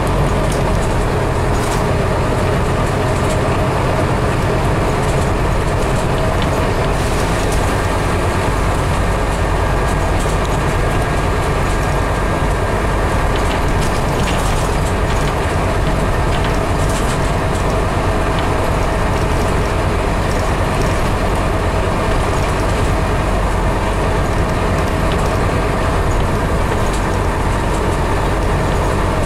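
Scania CN270UB city bus diesel engine and road noise heard from inside the passenger cabin, running steadily while under way. Light rattles from the interior fittings are scattered throughout.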